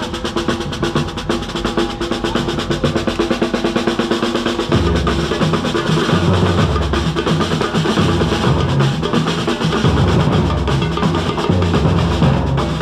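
Street drum group of large bass drums and snare drums playing a fast, dense rhythm. The bass drums come in heavier about five seconds in.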